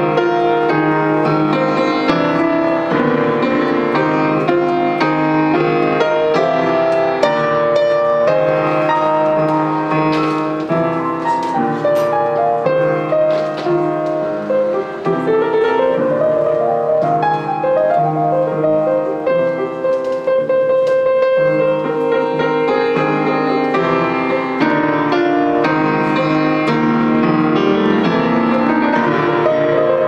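Grand piano playing a jazz piece live, with a steady stream of chords and melody notes.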